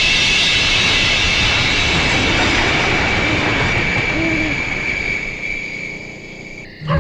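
Train running with its horn sounding in a long held tone, fading away over the last couple of seconds.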